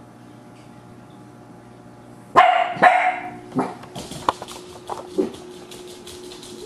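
A dog barking: two loud barks about two and a half seconds in, followed by several shorter, quieter yips.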